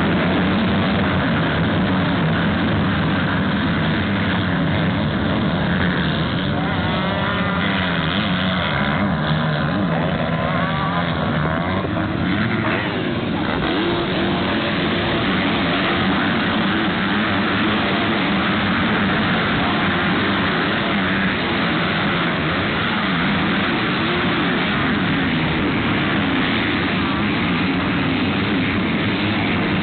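Motocross dirt bikes racing, their engines running loud and continuously and revving up and down as they pass.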